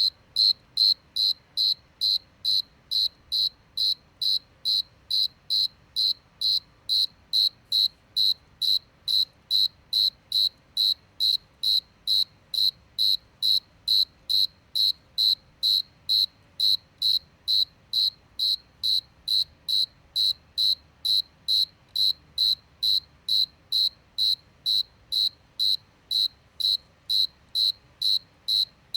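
A single cricket chirping steadily, short high-pitched chirps repeating evenly at about two a second.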